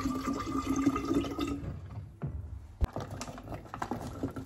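Mineral water pouring from a plastic bottle into a glass carafe, stopping about a second and a half in. A few clicks and one sharp knock follow.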